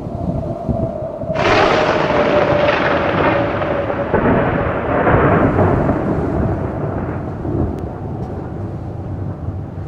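Thunder: a low rumble, then about a second and a half in a sudden loud crack that rolls on and slowly fades over several seconds.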